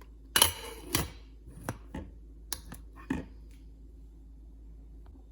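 Small spice-rack containers being filled and handled: a brief rattle, then a handful of sharp clicks and knocks, the last about three seconds in.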